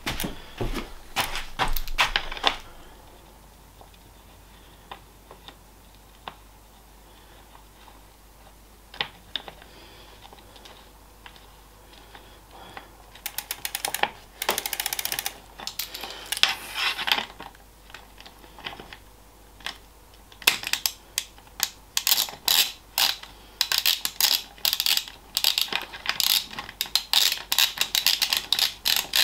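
A ratchet mechanism clicking in fast runs during bicycle chain and pedal work: a few sharp clicks at the start, a quiet stretch, a dense burst about halfway, then steady rapid clicking through the last third.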